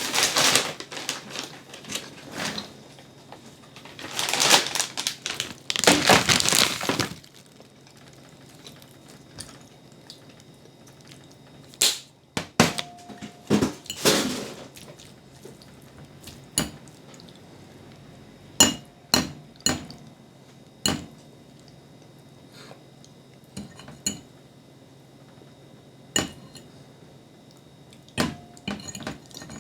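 Cutlery clinking against a plate during a meal: scattered sharp clinks with quiet gaps between them. A few seconds of noisy rustling come first.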